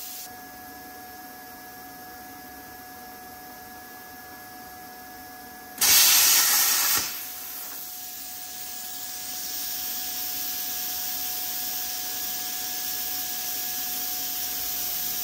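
Plasma cutter firing once for about a second, a loud hissing blast as the arc and air blow a hole through two stacked pieces of 26-gauge sheet metal. A quieter air hiss with a faint steady whine runs around it, and a softer, higher hiss builds a few seconds after the blast.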